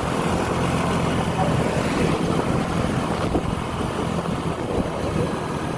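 A road vehicle's engine running steadily, with a low hum under road noise and wind buffeting the microphone.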